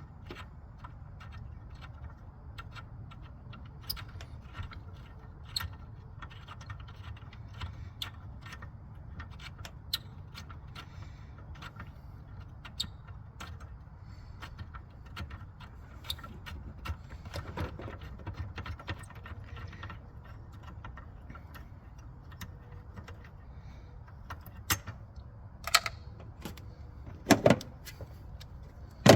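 Hand tools clicking and clinking irregularly against metal parts in a car's engine bay, over a low steady rumble, with a few louder knocks near the end.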